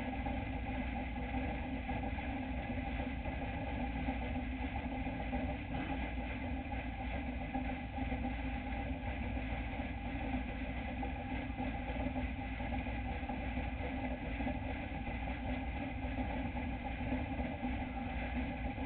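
Dirt-track racing truck's engine idling steadily, heard from inside the cab.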